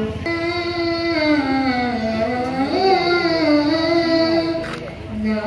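A devotional song sung in long, wavering held notes that glide up and down, with the dense beat of duff frame drums underneath. The loudness dips briefly near the end.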